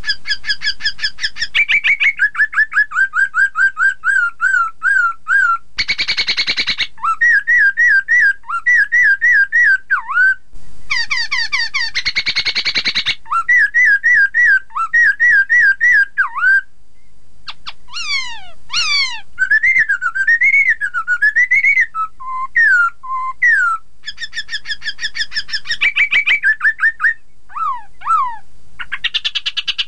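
Black-throated laughingthrush singing: rapidly repeated whistled phrases, broken by short harsh rasping bursts about six and twelve seconds in, and several steep falling whistles later on.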